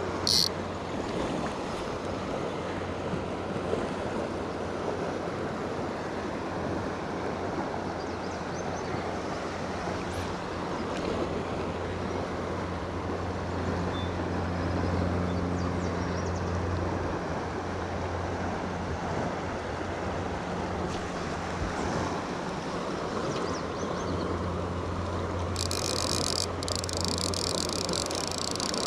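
Steady rush of a shallow river flowing around a wading angler, with some low wind rumble on the microphone. A sharp click comes right at the start, and near the end a fast high rattle starts up: a fly reel's click drag giving line.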